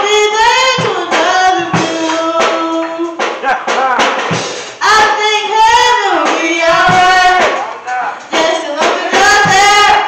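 Live gospel song: a solo voice holds long notes and slides through melismatic runs between words, with instrumental accompaniment underneath.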